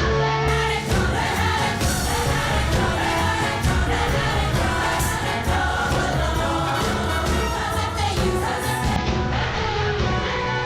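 Program music with a choir singing over a steady beat, played loud over an arena's sound system.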